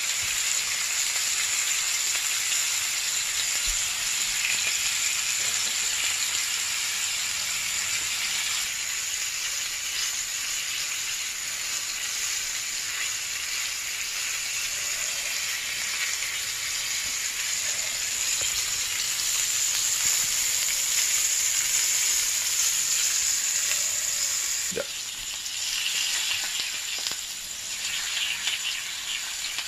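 T-bone steaks sizzling steadily on a hot ridged grill pan. Near the end there is a single knock, then the sizzle turns crackly and spitting as tongs stand one steak on its fat edge.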